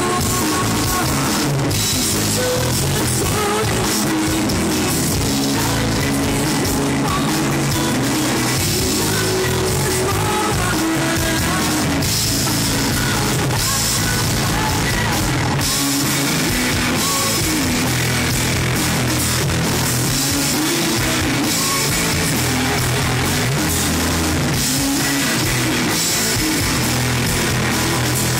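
Live rock band playing loud and without a break: a woman singing over electric guitars, bass and a drum kit.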